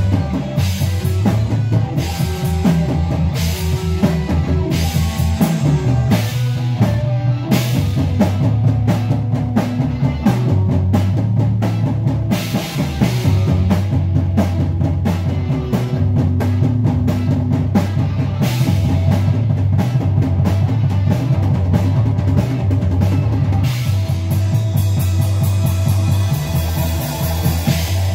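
Live rock band playing: a drum kit keeping a steady beat under a prominent electric bass line, with electric guitars.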